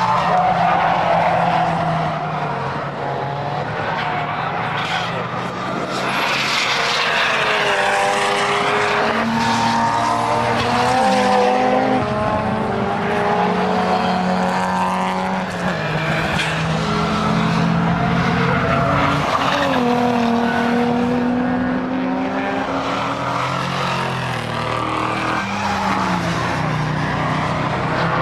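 Drift cars sliding sideways through a corner, engines revving up and down and tyres squealing and skidding as the rear wheels spin and smoke.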